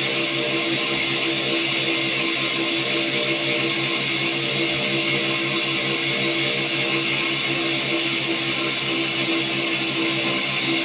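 Cotton candy machine running at a steady speed, giving a constant hum with several fixed tones over a steady hiss.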